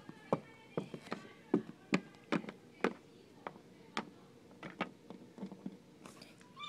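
Plastic Littlest Pet Shop toy figure tapping against a plastic dollhouse playset as it is moved by hand: a string of short, light clicks, about two or three a second and irregular.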